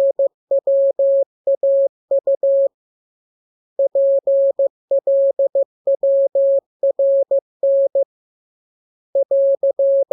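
Morse code practice tone: one steady mid-pitched beep keyed into dots and dashes, sent as letter groups of a practice radiogram with evenly machine-timed spacing. Longer pauses fall about 3 s in and near 8 s, and the final group is the AR end-of-message sign.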